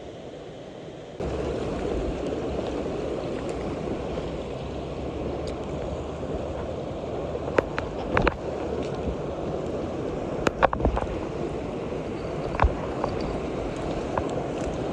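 Mountain stream water rushing steadily, growing louder in a step about a second in. Scattered sharp clicks and knocks cut through it in the second half.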